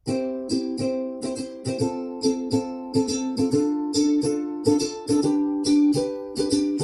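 Plucked-string music, a quickly picked ukulele-like instrument repeating notes over a steady chord, played back through a Bang & Olufsen Beosound A5 speaker. It starts abruptly after a brief silence.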